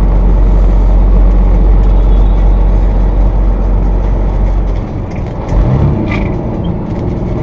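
Peterbilt 379 truck under way on the highway: a steady low engine and road drone that eases off about five seconds in, followed by a low thump and a short sharp hiss near the end.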